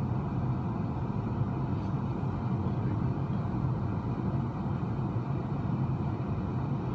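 Steady low rumble of a car's engine and road noise heard from inside the cabin as the car rolls slowly forward.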